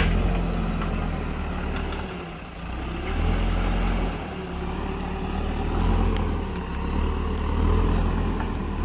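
Heavy diesel machinery engine running, with a steady low hum whose level swells and eases every couple of seconds as it works under changing load.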